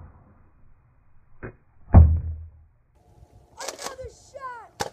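A short click, then about half a second later a loud, deep thud: a Nerf Rival foam ball fired from a blaster and striking near the target cone.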